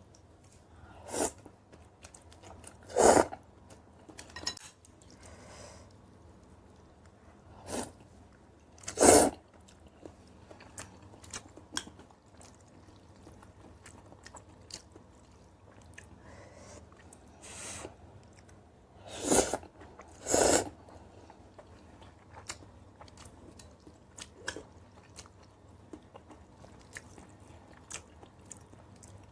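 A person eating kimchi noodles, fried eggs and kimchi: chewing and biting, with small wet clicks throughout. About six short, louder bursts come in pairs near the start, about a third of the way in, and about two-thirds of the way through.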